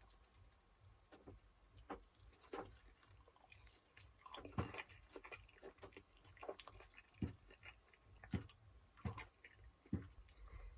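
Faint, close-up chewing of sticky barbecue chicken wing meat: irregular wet smacks and clicks of mouth and lips.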